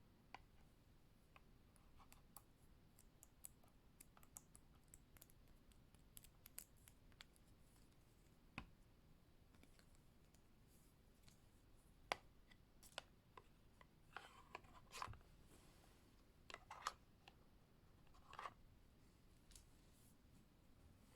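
Faint, scattered clicks and light scratches from fingers handling the plastic casing of a Western Digital My Passport external hard drive, with a few louder clusters of clicks in the second half.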